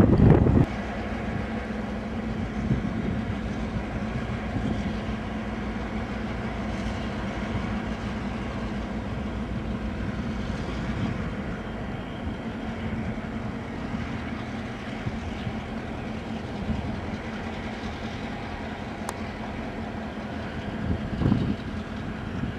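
Diesel locomotives X49 and H2 hauling a quarry train at slow speed: a steady diesel engine drone with a constant low hum. Wind hits the microphone hard at the very start and gusts again near the end.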